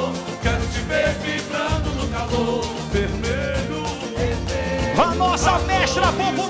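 Boi-bumbá toada played live: drums beating a steady rhythm under singing voices.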